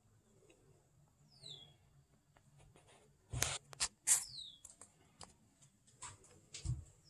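Faint bird chirps, two short falling whistles, with a cluster of sharp clicks and knocks a little past halfway.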